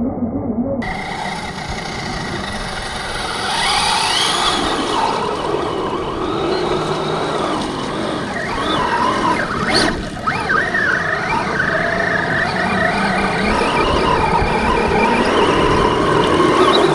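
Electric motor of a large 6x6 RC truck whining, its pitch rising and falling with the throttle as it drives through mud and water, over a rough wash of noise. A single sharp click sounds near the middle.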